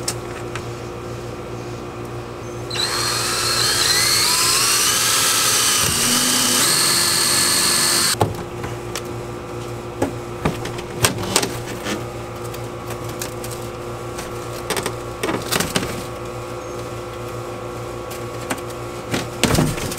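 Cordless drill boring a hole through a painted plywood boat floor for about five seconds, its whine rising in pitch as the bit cuts. After it stops there are scattered knocks and clunks as the floor panel is handled and lifted.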